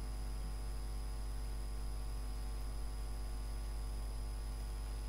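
Steady electrical mains hum with a faint high whine and hiss: the recording's own background noise, with no other sound.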